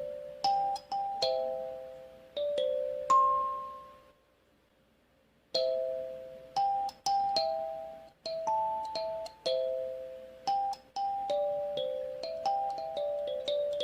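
Eight-key acrylic kalimba played as a simple melody: plucked metal tines, each note ringing out and fading. The playing stops for about a second some four seconds in, then picks up again.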